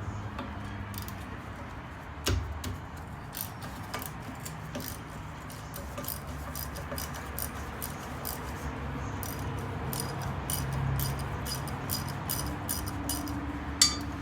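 Small metal clicks and clinks of hand tools and drum-brake hardware being handled and fitted, with two louder knocks, one about two seconds in and one near the end.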